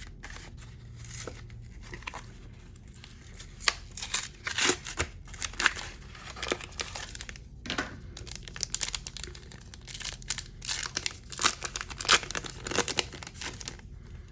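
Trading card pack packaging being torn open and crinkled by hand: irregular crackling and tearing, busiest from a few seconds in.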